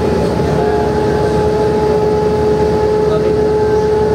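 Interior of a 1994 Mercedes O405N city bus with an OM447h diesel engine and ZF 5HP-500 automatic gearbox, running at a steady speed. There is a loud, even rumble of engine and road noise, with a steady high whine held at one pitch.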